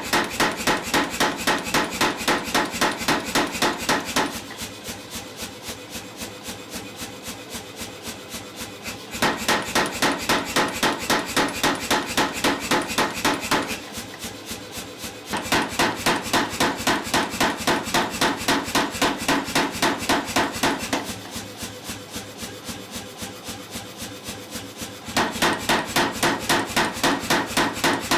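Mechanical power hammer striking hot steel in fast runs of about four to five blows a second. Four loud runs of several seconds each, with lighter, quieter blows in the gaps between them.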